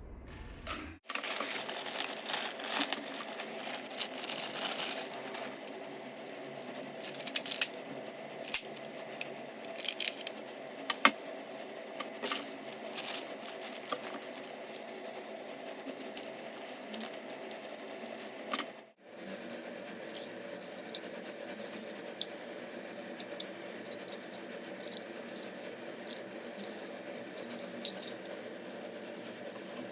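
Irregular clicks and rattles of small hard plastic parts being handled, over a steady hum. The sound cuts out briefly twice.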